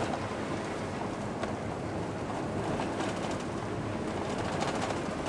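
Dodge pickup truck driving, heard from inside the cab: a steady mix of engine and tyre noise on a wet dirt road.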